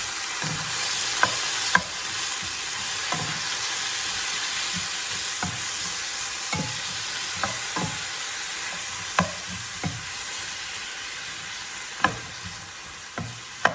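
Vegetables and mushrooms sizzling in hot oil in a frying pan, a steady hiss, with a utensil clicking against the pan every second or two as they are stirred.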